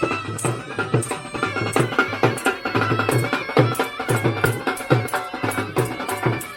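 Snake charmers' been (pungi), a reed wind instrument, playing a held, nasal melody over a steady drumbeat of low thumps and sharper strikes.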